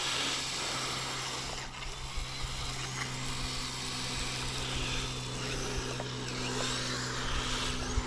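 Kyosho Blizzard RC snowcat's electric motor and gearbox whirring steadily as its tracks drive it up a snow hill, with a slightly higher tone joining about three seconds in.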